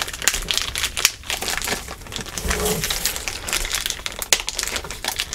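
Outer packaging of a boxed book crinkling and crackling as it is picked at and torn open by hand.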